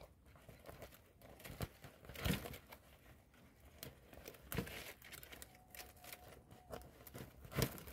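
Dry palm-leaf strips rustling and crackling faintly as they are tucked and pulled through a woven palm weave, with a few sharper clicks.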